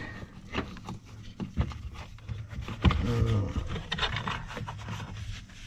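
Wires and plastic dash trim rustling and scraping, with scattered clicks, as a wiring harness is pushed up behind the lower dash panel. A brief low hum comes about three seconds in.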